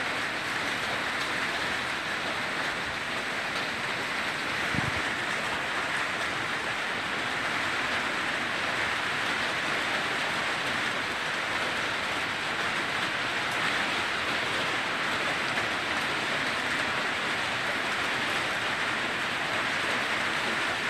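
Steady hiss of heavy, wind-driven hurricane rain, with a brief low knock about five seconds in.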